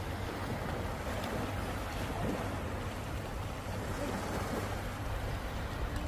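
Small surf washing in over a flat sandy beach: a steady, unbroken wash of breaking water, with a low rumble of wind buffeting the microphone.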